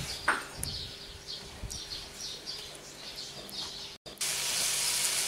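Small birds chirping again and again, high and thin. About four seconds in, a brief break, then a louder, even sizzle of duck pieces frying in a hot cast-iron skillet over a wood fire.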